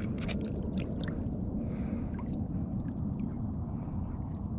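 Light water sloshing and dripping beside a kayak as a redfish is lowered into the water by its tail and released, over a steady low rumble with a few faint ticks.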